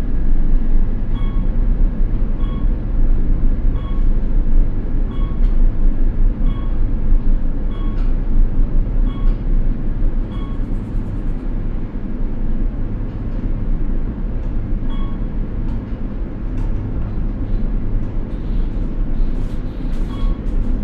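Glass elevator car travelling down its shaft: a steady low rumble with a light tick about once a second.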